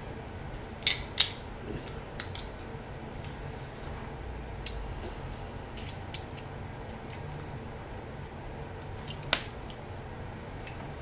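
Shellfish shells being cracked and picked apart by hand, giving scattered sharp cracks and clicks, the loudest two about a second in and another near the end.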